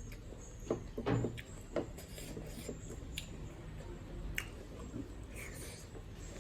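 Close-up eating sounds of a person eating a meal: scattered sharp clicks and rubbing of food and fingers or utensils against a plate.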